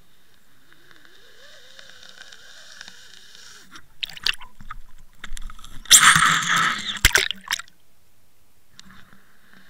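Underwater sound picked up by a camera towed on a fishing line: a steady whine and hum. From about four seconds in come a few seconds of loud sloshing, scraping noise with several sharp knocks, and then the steady whine returns.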